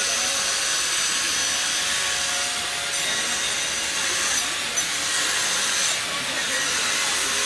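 Power tool cutting into a block of ice as it is carved: a steady grinding hiss, with a constant motor tone underneath.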